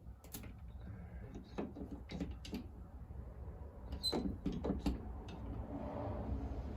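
Scattered clicks and light creaks from a Keco K-bar dent puller drawing glue tabs on a dented car quarter panel under gentle tension. The clicks come irregularly, about seven in all.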